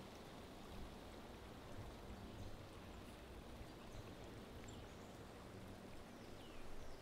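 Faint, steady outdoor ambience with a low hiss and rumble. Near the end come a few faint, short bird chirps that fall in pitch.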